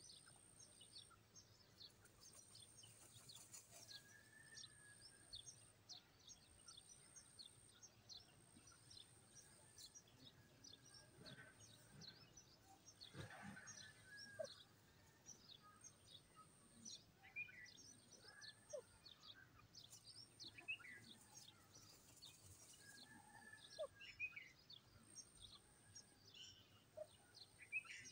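Faint bird chirps: many short high chirps, several a second, with a few longer curving calls lower in pitch, over a very quiet background.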